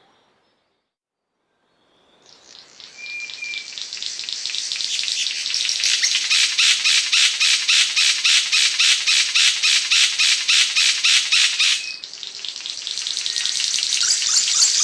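Cendrawasih panji (Asian paradise flycatcher) giving a long, high, raspy chatter of fast even pulses, about five a second. It starts after a couple of seconds of silence, swells up, holds steady, breaks off about twelve seconds in, and starts again.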